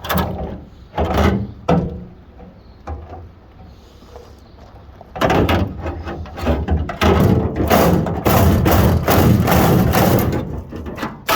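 Reciprocating saw (Sawzall) cutting through a sheet-steel car floor pan, in short bursts at first, then a long continuous cut from about halfway through until just before the end, finishing the cut that frees the patch piece.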